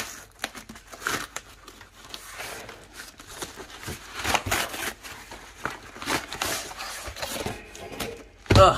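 Taped cardboard packaging being torn and ripped apart by hand, in irregular rips and crinkles. A short vocal sound comes near the end.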